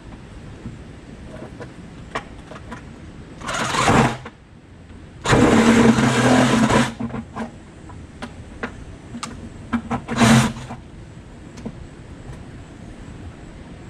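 Cordless reciprocating saw cutting slots deeper into a plastic bucket in three bursts, the middle one the longest, with light clicks and knocks between the cuts.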